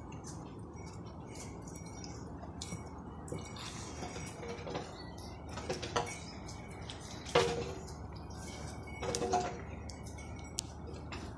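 Cattle feeding at a concrete trough: scattered light clicks and a few louder clinks and knocks, the loudest about seven seconds in, over a steady low hum.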